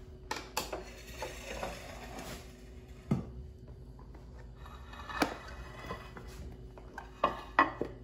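Dishes knocking and clinking on a granite kitchen countertop: a few scattered sharp knocks, the loudest two close together near the end, with some rustling handling noise early on.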